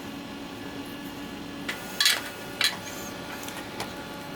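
A low steady hum that cuts off about a second and a half in, then two sharp clicks and a fainter one as the battery charger's power cord is handled and plugged into an outlet.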